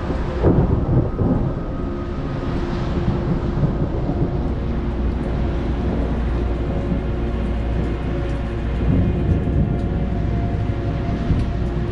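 Thunder from a passing thunderstorm: a long, low, continuous rumble, loudest about half a second to a second and a half in.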